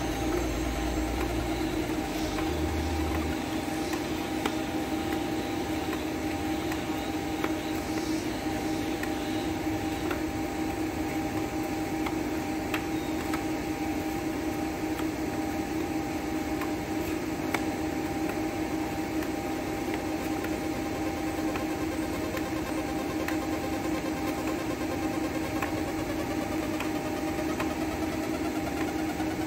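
Steady mechanical hum with a constant low tone, from a machine running without a break; a deeper rumble underneath stops about three seconds in, and a few faint light clicks come through it.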